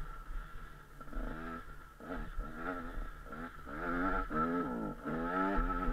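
KTM 125 SX's two-stroke single-cylinder engine revving up and down over and over as the bike is ridden, its pitch rising and falling several times a second. It is quieter for the first two seconds and louder in the second half.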